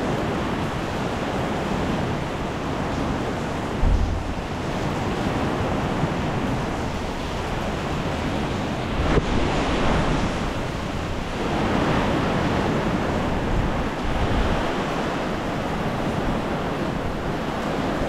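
Steady rain falling on wet paving and puddles, an even hiss, with a few brief low thumps on the microphone.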